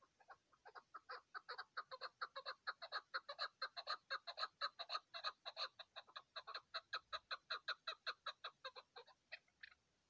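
Chukar partridge calling: a long run of short clucking 'chuk' notes, about six a second, starting sparse, building to loud through the middle and stopping near the end.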